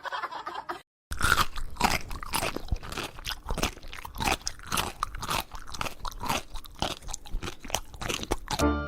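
Chewing on something crunchy, a rapid run of irregular crunches. It is most likely a pet eating.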